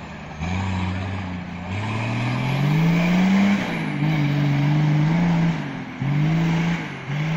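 Nissan Patrol's 3.3-litre turbo diesel engine revving under load: the revs climb steadily, drop back just past the middle, are held up again, then rise and fall in short blips near the end.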